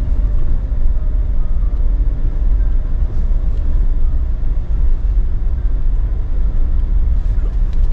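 Inside the cabin of a Suzuki Jimny with its 1.5-litre four-cylinder petrol engine, driving along a grassy dirt track: a steady low rumble of engine and running gear, with no sudden knocks or changes.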